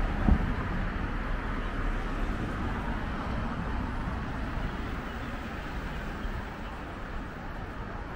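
Street traffic noise as cars drive past on a city road. It is loudest at the start, with a short knock just after it begins, then eases into a steadier, quieter hum of traffic.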